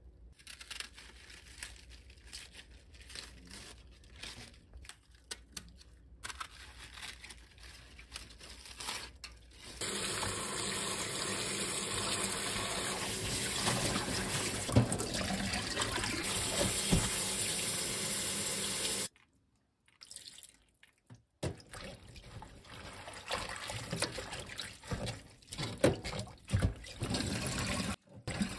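Faint small cuts and taps of a knife trimming young napa cabbage stems, then a kitchen tap running steadily into a steel bowl of cabbage leaves in a stainless sink. Later comes uneven splashing and sloshing as the leaves are swished and rinsed by hand in the water.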